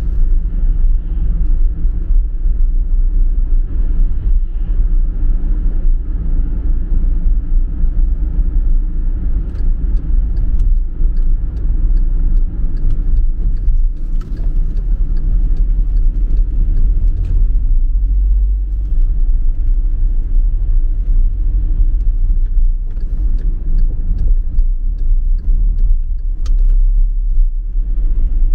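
Steady low rumble of a car being driven, road and engine noise with tyres running on a wet road.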